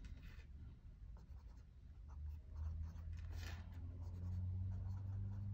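Medium-nib Pelikan M400 fountain pen writing on lined paper on a clipboard: soft scratches of the nib on the paper. A low steady hum underneath grows louder about halfway through.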